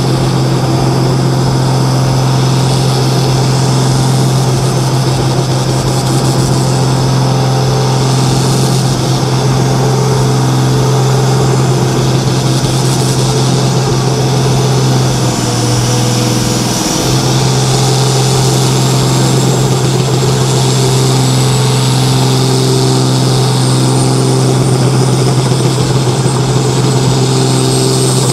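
Turbocharged diesel engine of a Super Sport pulling tractor running at steady, held revs at the start line, building boost pressure before the pull. A thin high whistle joins in about two-thirds of the way through.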